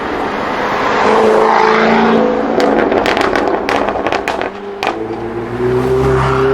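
Jaguar F-Type SVR's supercharged V8 exhaust under hard acceleration, followed by a rapid string of about ten sharp crackles and pops as the throttle closes. The engine then settles into a steady low note.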